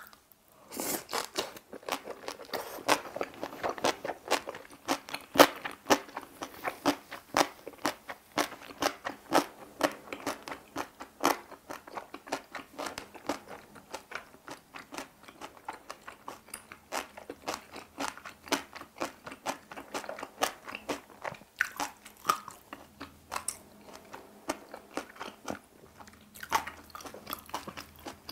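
Close-miked chewing of a mouthful of napa cabbage kimchi with boiled pork: rapid, steady crunching that starts about half a second in.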